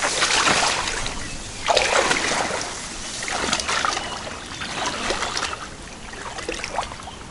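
Wader-clad footsteps wading through shallow water and reeds, a splashing swish with each stride, growing fainter toward the end.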